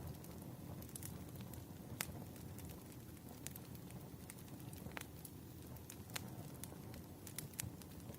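Campfire crackling: a low, steady rush of burning wood with sharp pops at irregular intervals, the loudest about two and five seconds in.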